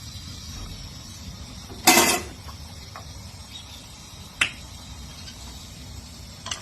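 A loud sharp knock about two seconds in, followed by two smaller clicks, over a steady low background hiss.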